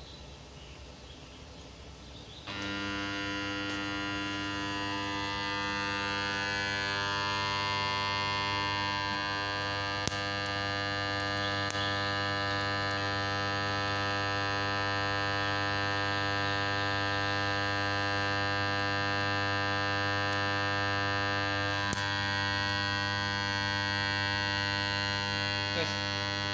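Microwave-oven-transformer spot welder switched on about two and a half seconds in, its transformer humming steadily at mains frequency, with a few faint clicks along the way.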